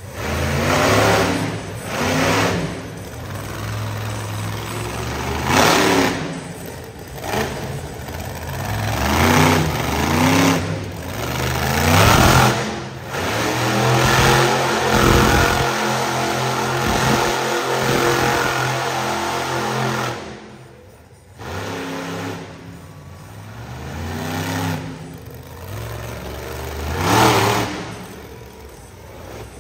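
Monster truck engine revving hard in repeated bursts that rise and fall every few seconds, with one longer stretch held at high revs in the middle and a sudden drop off the throttle about two-thirds of the way through.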